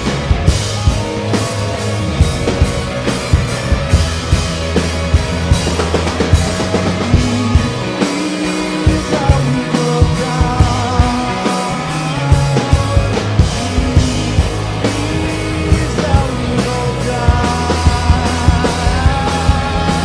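Rock band playing live and loud, with a drum kit keeping a steady beat under held low notes and melodic lines.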